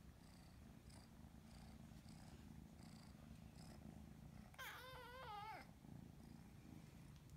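A cat purring with a low, steady rumble. About halfway through it gives one meow of about a second, its pitch wavering.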